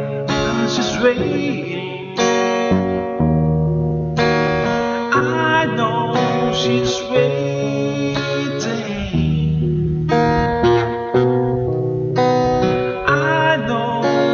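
A man singing a ballad while strumming an acoustic guitar.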